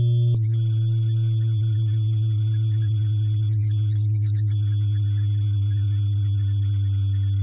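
A kick drum run through a huge chain of FL Studio Soundgoodizer plugins, crushed into a steady buzzing hum with hiss on top. The sound shifts abruptly a fraction of a second in, and about halfway through a few quick sweeps glide through the high end.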